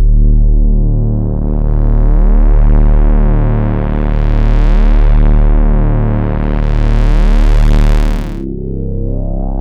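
Sequential Circuits Pro-One monophonic analog synthesizer playing a deep, buzzy bass tone that swells and fades about every two seconds as its filter opens and closes. The tone stops abruptly about eight seconds in, and a new sound follows whose brightness sweeps steadily upward.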